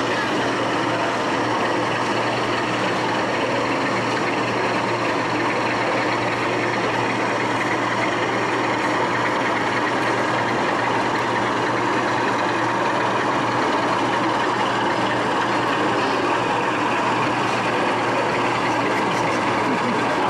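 A steady engine-like drone with a constant low hum, unchanging throughout.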